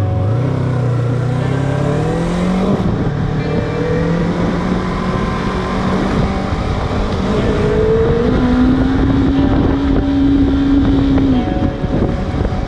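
Yamaha R3 motorcycle's parallel-twin engine pulling under acceleration. Its note rises over the first couple of seconds and holds, then climbs to a higher steady pitch about eight seconds in and drops away near the end, over steady wind and road noise.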